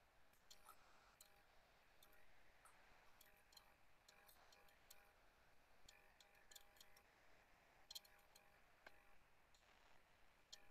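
Near silence: faint room tone with scattered faint ticks.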